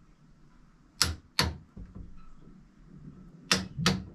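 Torque wrench clicking as it reaches its set torque on the propeller-shaft thrust bearing's set screws: two pairs of sharp metallic clicks, one pair about a second in and another near the end.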